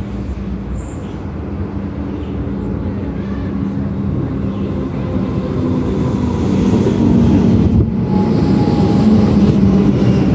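A train approaching, growing steadily louder, with a steady low hum and engine-like overtones.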